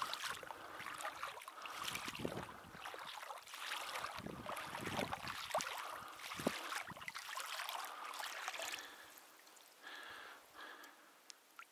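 Water sloshing and splashing in irregular surges as someone moves through a marsh pond to a shot duck, quieter from about nine seconds in, with a few soft short sounds as the duck is lifted out of the water.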